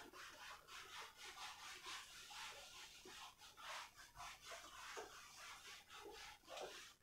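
A whiteboard being wiped clean by hand: faint rubbing swishes in quick repeated back-and-forth strokes, about two to three a second.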